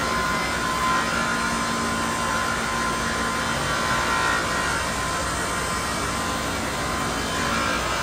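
Portable sawmill running steadily as its saw cuts through a squared log, with a constant machine hum under the cutting noise.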